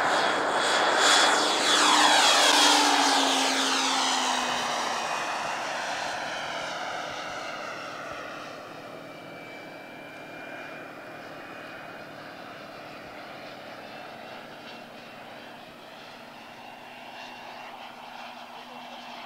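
Radio-controlled Embraer EMB 312 Tucano scale model aircraft making a fly-past, engine and propeller loudest about two seconds in, then dropping in pitch as they pull away. The sound then settles into a quieter steady drone in the distance.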